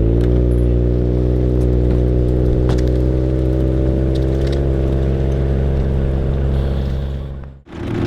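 Off-road vehicle engine running steadily at a low, even speed while riding slowly. Near the end it fades out abruptly, and a different, louder engine sound starts.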